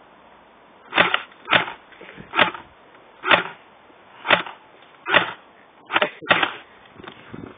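BB gun shots: eight sharp cracks about a second apart, with the last two close together, followed by a few faint ticks.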